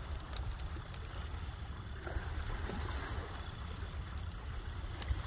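Wood bonfire burning, with a few sharp crackles and pops from the logs, over a steady low rumble of wind on the microphone.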